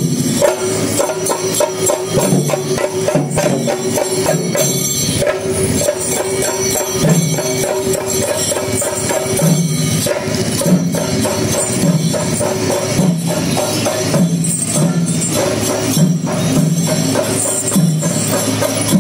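Rhythmic percussion music with jingling cymbals and drums, playing continuously in a fast, even beat over a held tone.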